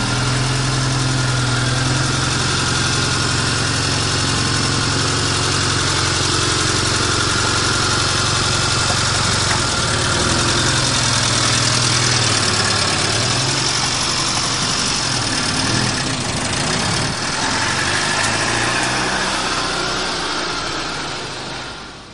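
Holden Barina (Suzuki Swift) hatchback's small petrol engine running at low revs, its pitch wavering in the middle and fading out near the end.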